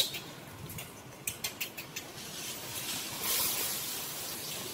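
Leaves and twigs rustling as a macaque pulls on a thin leafy branch. A run of short crackling clicks comes in the first two seconds, then a longer rustle in the second half.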